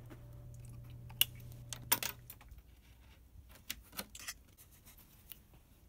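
A cat crunching and biting icicles: a series of sharp cracks and snaps, the loudest about two seconds in and several more in a cluster past the middle. A low steady hum runs under the first half.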